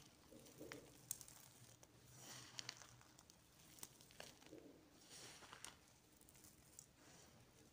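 Faint dry rustling of a hand scooping and sifting crushed multani mitti (Fuller's earth) clay chunks and powder on a ceramic plate, in three soft swells with scattered small clicks of clay pieces.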